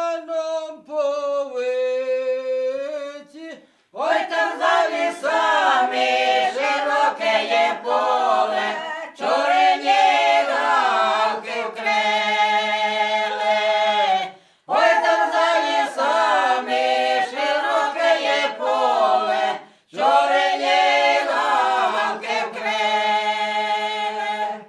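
A cappella choir singing in long held phrases with short breaks between them; a lighter opening phrase gives way to the full choir about four seconds in.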